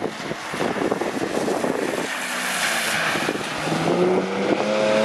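Mk4 Toyota Supra engine under power as the car slides on a wet skidpan, with the hiss of tyres through standing water; the revs climb over the last second or so.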